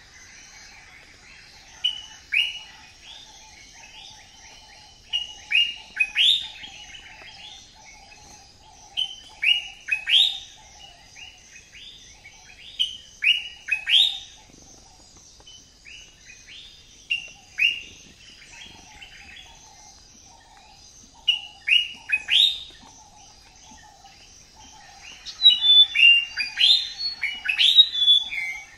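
Birds chirping: short, sharply falling chirps in clusters every few seconds, busier near the end, over a faint steady high-pitched hiss.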